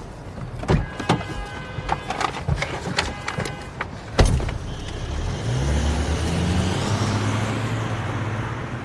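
Clicks and knocks of someone getting into a car, a car door shutting about four seconds in, then the car's engine rising in pitch as it pulls away.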